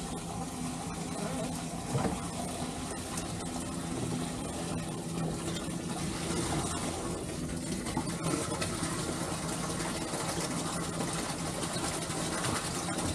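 Small portable gasoline engine running steadily at one speed.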